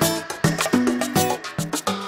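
Background music: an upbeat dance tune with a steady percussion beat, a bass line and pitched melody notes.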